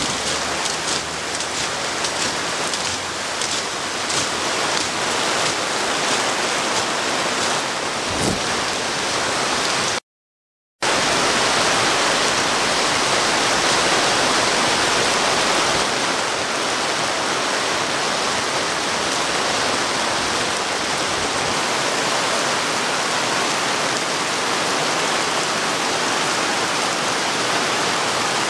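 Heavy tropical rain pouring steadily onto an open parade ground. The sound cuts out completely for under a second about ten seconds in.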